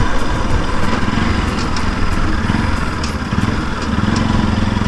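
Motorcycle engine running on the move, its pitch drifting up and down a little, over a steady rush of wind and road noise.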